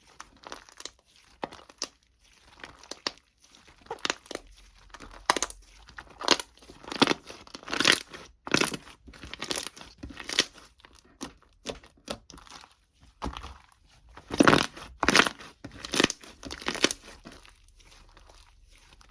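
Irregular crinkling and tearing at close range, a run of rustles with louder bursts around the middle and again later.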